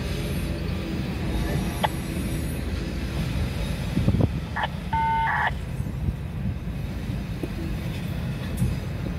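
Loaded autorack freight cars rolling slowly past, a steady low rumble of wheels on rail, with a knock about four seconds in.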